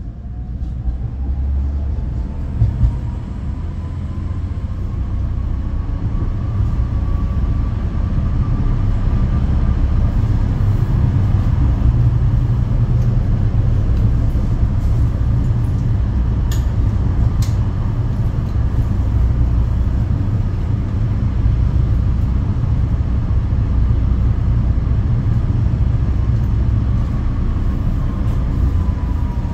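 Tram in motion, heard from on board: a steady low rumble of wheels on rail with a motor whine that rises as it gathers speed and falls away near the end. Two brief ticks about halfway through.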